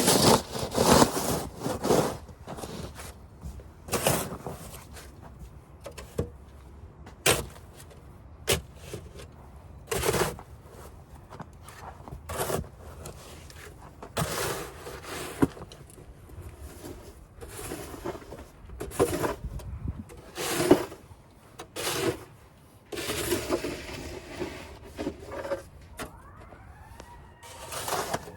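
Snow shovel scraping and pushing through snow in irregular strokes, one every one to two seconds. Near the end an emergency-vehicle siren rises in pitch and then holds a wailing tone.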